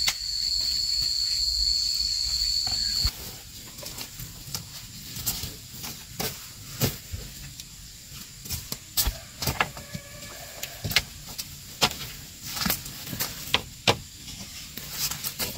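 A steady high-pitched insect buzz that cuts off about three seconds in, followed by scattered light clicks and knocks of split-bamboo strips and poles being handled and set against each other.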